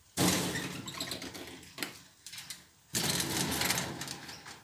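Metal security screen door rattling and scraping in two bursts, as it is opened and then pushed shut again.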